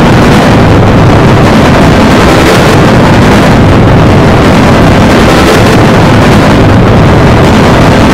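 Heavily overdriven, clipped audio from an effects edit of the logo's soundtrack: a steady, dense wall of loud noise with no clear tune or beat.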